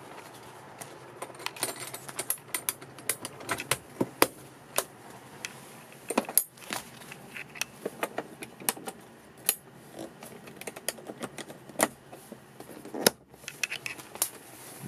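Irregular clicks, taps and rustles, several a second, from a hand handling and pressing the cab's textured vinyl floor mat and carpet edges.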